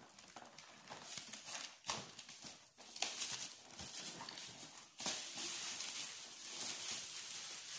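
Plastic film being peeled off a cardboard box and crumpled by hand: crinkling and crackling with a few sharp snaps, denser and louder from about five seconds in.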